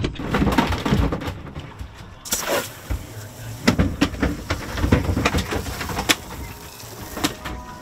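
Irregular knocks, thuds and clatter on a fibreglass boat deck, with a brief hiss about two and a half seconds in.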